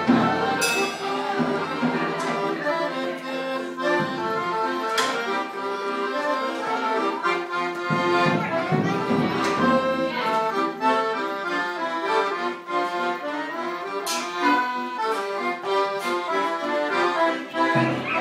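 Accordion playing a lively, steady-rhythm tune, with held chords under a moving melody. A few sharp knocks come through over the music.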